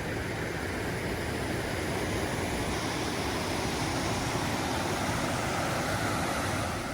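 Steady rushing noise of a mountain creek's flowing water, cutting off abruptly near the end.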